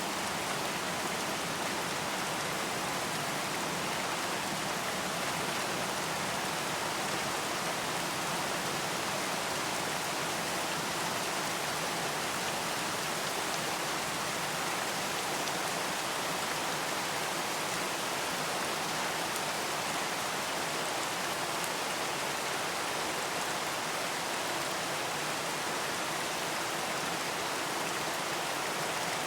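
Steady rain falling, a dense even hiss of many raindrops with no single drops standing out.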